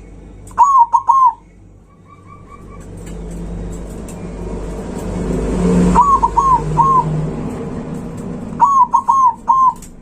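Zebra dove (perkutut) singing loudly: three phrases, each a quick run of three or four arched coos. A low vehicle rumble swells and fades in the middle.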